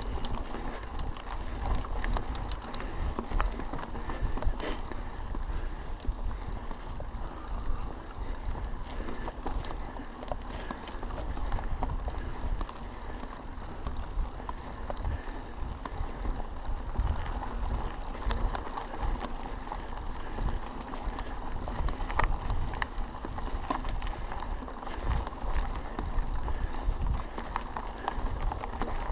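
Mountain bike riding a gravel forest track: tyres crunching over gravel, with scattered clicks and rattles from the bike. A low, fluctuating rumble of wind buffets the camera microphone.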